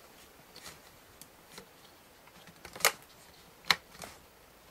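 A DDR3 RAM module being pushed into a Mac Pro memory-tray slot: faint handling ticks, then two sharp clicks under a second apart as the slot latches snap shut on each side, the sign that the module is seated.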